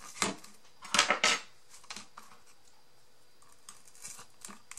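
Tweezers poking a hole through a paper craft piece: a short scratchy rasp just after the start and a louder cluster of scratches about a second in, then a few faint light clicks of handling.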